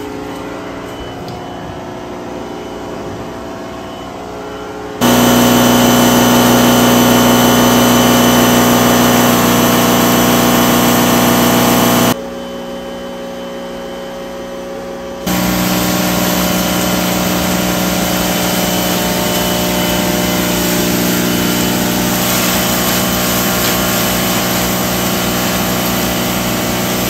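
Pressure washer running with a loud steady motor hum and hissing jet as it blasts wet floor tiles. It cuts in abruptly about five seconds in, drops out around twelve seconds, and starts up again a few seconds later.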